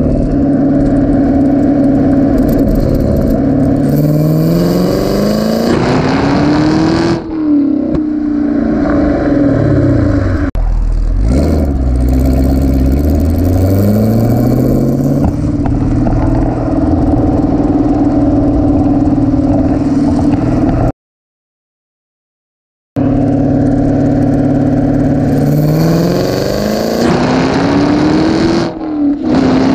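Camaro SS's 6.2-litre LT1 V8 heard right at the tailpipe through its active (NPP) exhaust in touring mode, pulling at wide-open throttle in second gear: the engine note climbs steadily, drops sharply, falls away, then climbs again and holds steady. The sound cuts out for about two seconds, and then another full-throttle pull climbs and drops back near the end.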